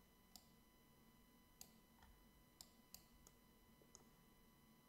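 Near silence with faint computer mouse clicks, about seven at irregular intervals, over a faint steady electrical hum.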